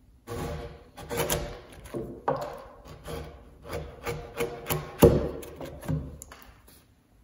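A large chisel is pushed by hand down the wall of a timber mortise, paring and scraping the wood in a run of short strokes, about two a second. The sharpest and loudest stroke comes about five seconds in.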